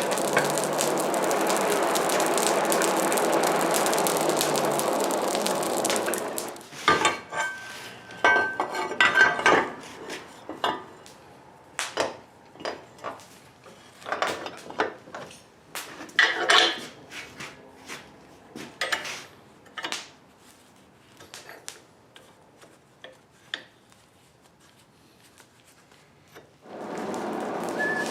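Scattered clinks and clatters of steel stock and tools being handled, one piece ringing briefly. These come between stretches of a steady rushing noise that stops about six seconds in and starts again near the end.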